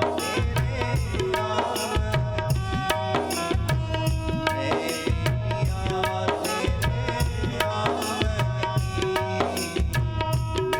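Instrumental passage of a Hindi devotional song: a hand drum plays a steady rhythm under held melodic notes, with no singing.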